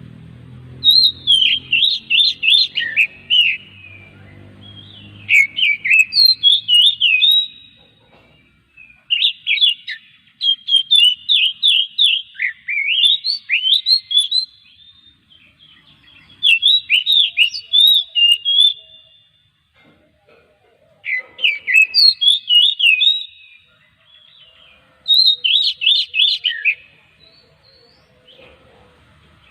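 Oriental magpie-robin (kacer) singing loudly in full song. It gives about seven phrases of rapid, sweeping whistled notes, each lasting a second or two, with short pauses between them.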